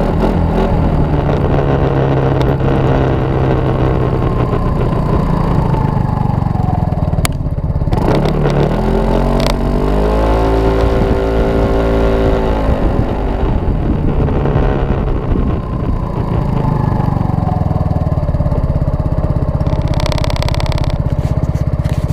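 Kymco Racing S scooter's single-cylinder four-stroke engine, heard close to its aftermarket muffler while riding: the engine note falls away, climbs steeply about nine seconds in and holds, then drops as the scooter slows to a stop and runs steady and low. A brief hiss comes near the end.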